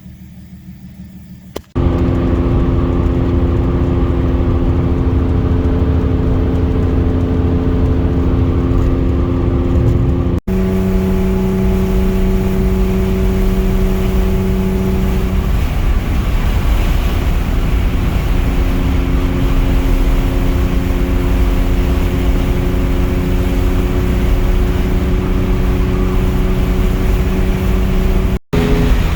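BMW E36 engine droning at a steady cruise, with heavy road and wind noise as heard inside the car. It begins suddenly about two seconds in, and the sound breaks off and jumps at two hard cuts, near ten seconds and near the end, where the engine note changes pitch.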